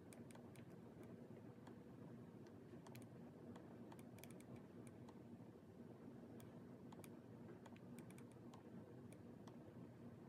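Faint, irregular clicks and taps on a laptop's keys and touchpad, over a low steady hum.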